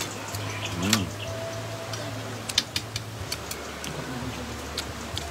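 Utensils clicking against bowls and plates as people eat: a few sharp, irregular taps, the loudest about a second in, over a steady low hum.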